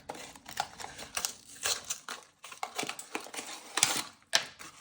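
Packaging crinkling and crackling in the hands as a small blind box is torn open, in irregular rustles with a couple of sharper crackles near the end.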